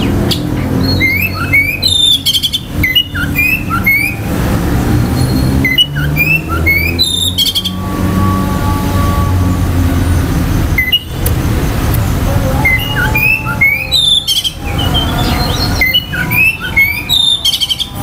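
Oriental magpie-robin singing: bouts of varied whistled notes that slide up and down, each bout a second or few long, separated by short pauses. A steady low rumble runs underneath.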